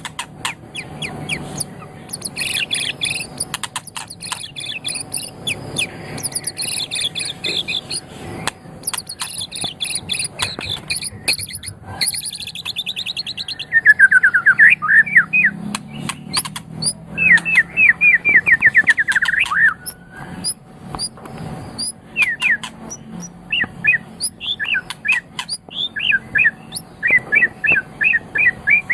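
A murai, a Copsychus songbird of the magpie-robin and shama group, singing a long, varied song of high whistled phrases, sharp clicks and fast rattling trills, loudest in the middle.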